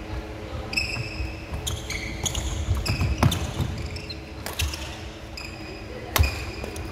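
Badminton doubles rally on a wooden court: rackets crack against the shuttlecock while shoes squeak and feet thud on the floor between shots. A hard overhead smash lands near the end.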